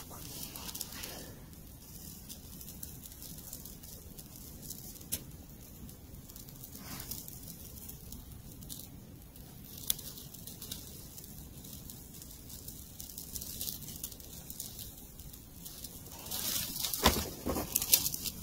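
A small tinder fire just lit in a log-cabin stack of dry sticks, crackling faintly with a few isolated ticks. Near the end come louder, quick snaps and rustles as dry twigs are broken and laid onto the flame.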